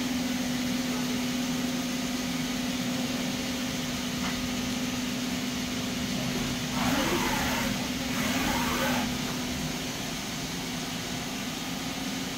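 Doosan Lynx 220LMA CNC turning center running with its spindle at 1000 rpm: a steady mechanical hum with a constant low tone. A little past the middle, a wavering whine rises and falls for about two seconds, then settles back to the hum.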